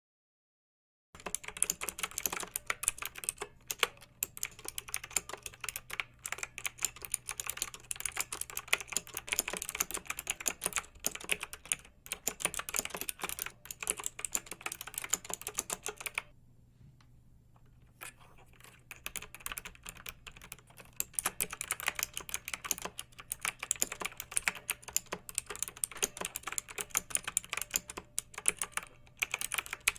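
Computer keyboard being typed on, rapid continuous keystroke clicks, with a short pause a little past halfway. A faint steady low hum runs underneath.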